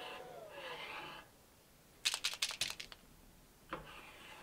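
A white marker scratching along the metal slats of an old door, with a faint squeak. About two seconds in comes a quick run of about eight sharp clicks, and one more click near the end.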